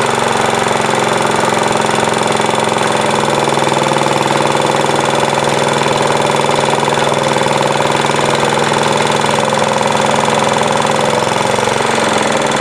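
Briggs & Stratton 5S single-cylinder engine on a 1953 Craftsman power reel mower running steadily, with a brief wobble in speed near the end. It needs a head gasket: exhaust leaks from all around the head and it is not running just right.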